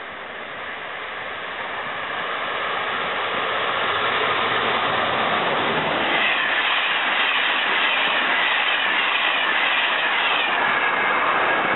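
SNCF BB 26000 'Sybic' electric locomotive hauling a Téoz train of Corail coaches at speed. The rush of the train grows over the first few seconds as it approaches, then the coaches go by loudly with a rhythmic clatter of wheels on the rails.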